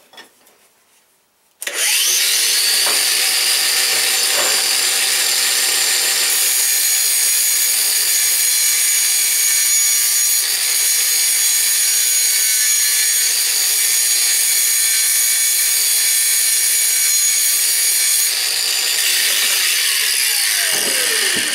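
Cordless angle grinder switching on a couple of seconds in and grinding steadily through the steel rivets of a saw-chain link, mostly a high-pitched grinding noise. Near the end it is switched off and winds down with a falling whine.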